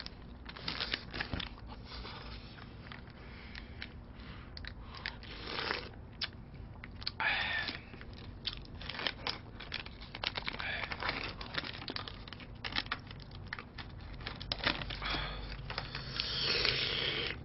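Food packaging being opened by hand: irregular crinkling, crackling and tearing of plastic and paper wrapping, with small clicks, a little louder in brief spells.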